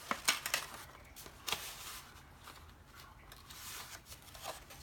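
Paper rustling and crinkling as a large paper petal is handled and pressed into place, with a few short, sharp crackles in the first second and a half and a softer rustle later on.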